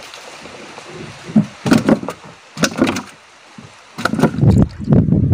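Several sharp knocks and clatters on a small wooden boat's hull as fishing gear is handled, followed, from about four seconds in, by a steady low rumble of wind on the microphone.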